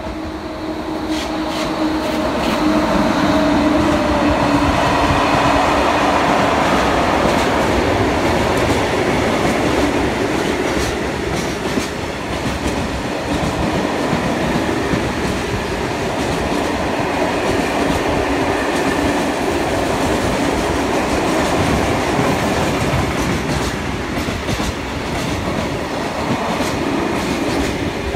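Freight train passing close by: two electric locomotives in SNCF Fret livery go by with a hum that dips slightly in pitch over the first few seconds, then a long string of tank, pipe and hopper wagons rolls past with a steady clickety-clack of wheels over the rail joints.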